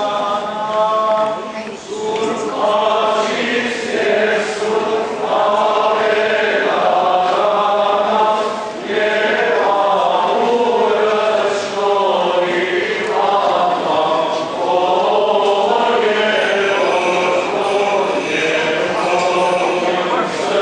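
Choir singing an Armenian church hymn in slow, sustained lines.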